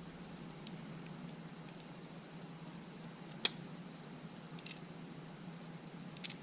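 Small clicks and ticks as a thin tool works along the camera's LCD frame to release the panel adhesive: one sharp click about halfway through and a few fainter ones near the end, over a faint steady low hum.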